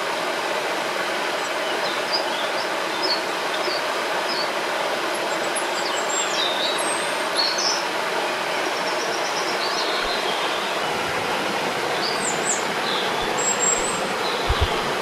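Steady rushing of a river, with small birds calling and singing in short high chirps and trills throughout. A couple of brief low thuds come near the end.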